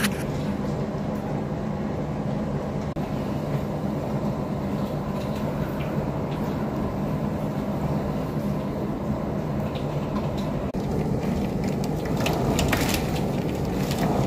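Strong storm wind gusting against the microphone as a steady low rumble, with scattered sharp crackles that grow louder near the end.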